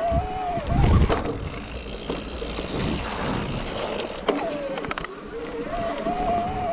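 Electric mountain bike's mid-drive motor whining at a steady, slightly wavering pitch, cutting out twice briefly, over tyre rumble and rattling clicks from riding a rough trail.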